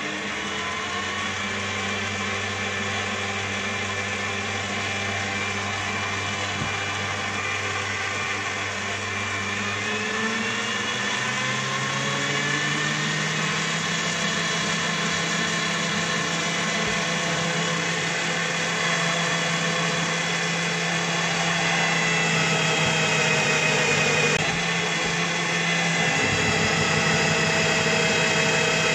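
Einhell BT-TB 13 E Digital bench drill press running, its motor pitch rising as the speed is turned up from its low start-up speed. Near the end a 40 mm Forstner bit bores into a wooden beam, and the electronic speed control holds the spindle speed nearly steady under the load.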